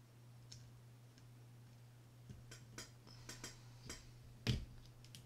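Faint metal clicks and scrapes of a flathead screwdriver tip prying at the C-clip on a Shimano Bantam Curado CU-200 baitcasting reel's drive shaft, with a louder click near the end.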